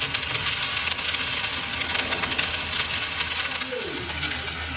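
Metalworking noise in a machine shop: a steady, dense crackling hiss over a constant low hum.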